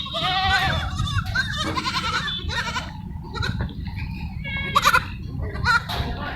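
Several goats bleating, their calls overlapping at different pitches, with short sharp bleats near the end.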